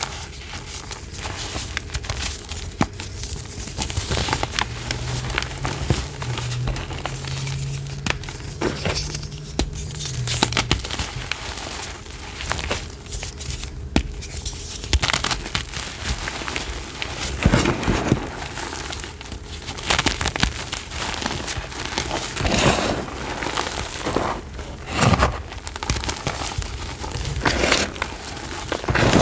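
Crumbly powdery blocks being crushed, with dense crunching and crackling throughout and several louder crunches in the second half.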